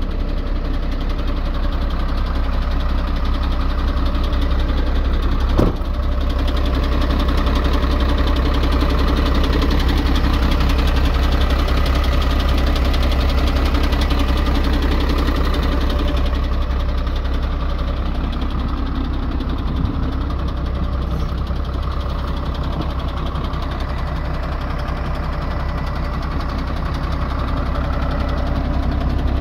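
Iveco EuroCargo 90E18 truck's diesel engine idling steadily, with one brief knock about six seconds in.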